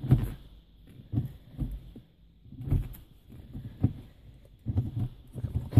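Manual gear lever of a Ford Focus ST being worked through the gears by hand, giving about five dull clunks roughly a second apart.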